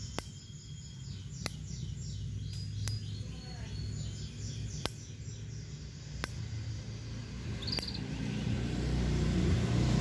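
Songbirds chirping in quick falling notes, with sharp ticks about every one to two seconds. Near the end a motorbike engine grows louder as it approaches.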